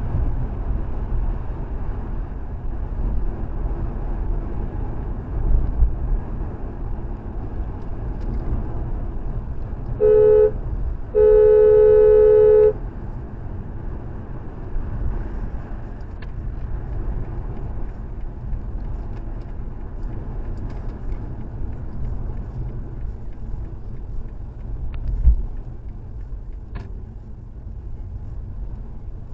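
Steady road and engine rumble from a moving car, with the car horn honked twice about ten seconds in: a short toot, then a longer blast of about a second and a half, sounded as a warning at a car pulling in ahead. A single low thump comes later.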